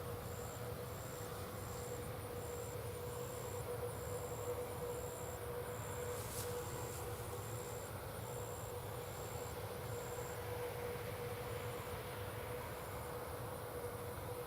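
Steady low hum of farm machinery running at a distance: tractors pulling peanut pickers, with a steady whine.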